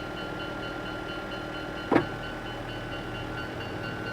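Japanese railway level-crossing warning bell ringing in a steady repeating rhythm over a continuous rumble of train or traffic. A brief loud sound that falls in pitch cuts in about two seconds in.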